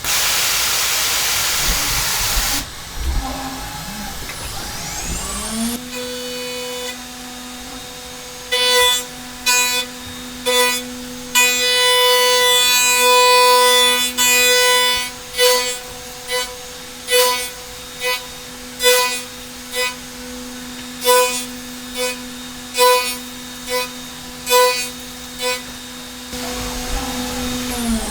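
A Hermle C400 spindle speeds up with a rising whine. A 32 mm two-flute plunge mill then plunges again and again into dry aluminium, each plunge a short ringing cutting burst about once a second, with one longer cut in the middle. Near the end the spindle winds down. It opens with a loud hiss.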